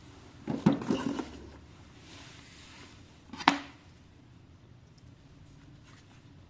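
Hard plastic parts being handled: a quick run of clicks and knocks, then a single sharp click about three and a half seconds in.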